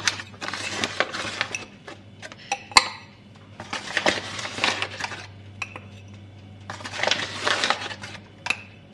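Metal balloon whisk working flour into cake batter in a glass mixing bowl, in three short bouts of scraping with the wires clinking against the glass. There is one sharp clink about three seconds in.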